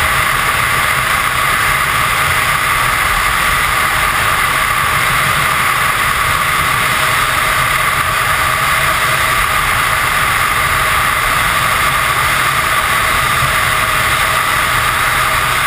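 Loud, steady rush of freefall airflow over a helmet-mounted camera, with a constant whistling note running through it.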